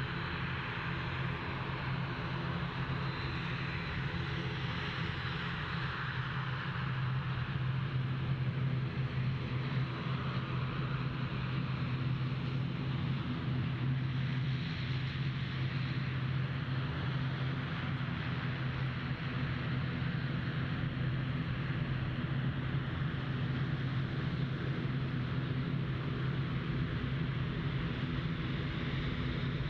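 ATR 72's twin Pratt & Whitney PW127 turboprops at taxi power: a steady propeller drone with a hissing whine over it, a little louder from about eight seconds in.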